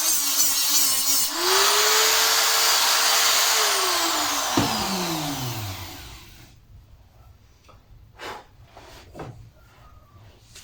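Electric grinder grinding down a weld on a stainless steel exhaust pipe. About a second in, the motor's pitch rises as the disc comes off the metal. After that it is switched off and winds down with a falling whine, leaving a few faint knocks.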